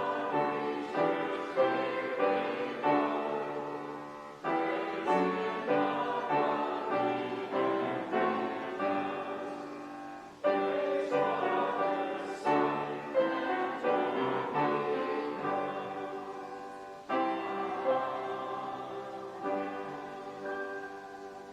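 Piano playing slow, hymn-like music in phrases. Each phrase opens on a strong chord that fades gradually, and the last phrase dies away near the end.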